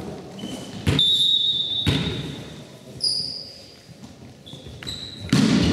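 A volleyball bounced on a sports-hall floor: two or three hollow thuds about a second apart, with thin high squeaks after some of them. A louder, longer burst of noise comes near the end.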